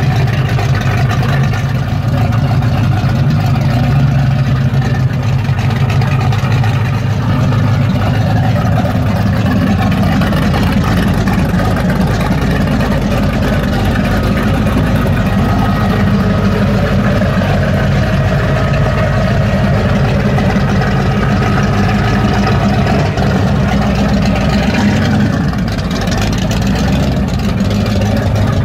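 1972 Chevrolet Chevelle SS's 8.2-litre 502 cid big-block V8 idling with a steady, deep exhaust rumble.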